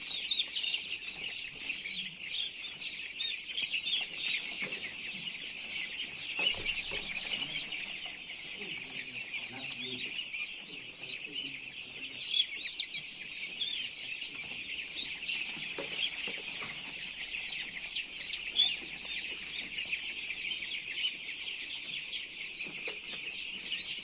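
A large flock of young chicks cheeping all together: a dense, continuous chorus of short, high peeps.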